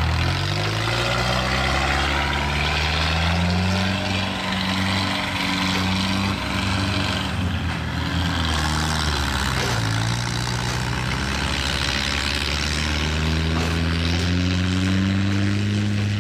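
Engines of several homemade tracked dump carriers running as they crawl past through a muddy rice field with loads of mud, their pitch slowly rising and falling.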